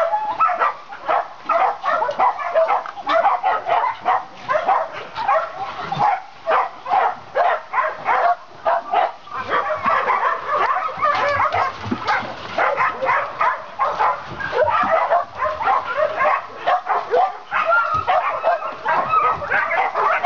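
Many kennelled dogs barking at once: a dense, unbroken run of overlapping barks.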